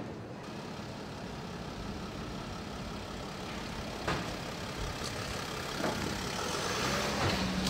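Van assembly-line factory noise: a steady engine-like running sound with sharp knocks about four, five and six seconds in, growing a little louder near the end.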